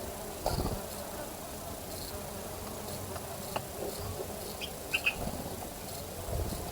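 Steady insect buzzing, with a few short clicks and brief faint chirps.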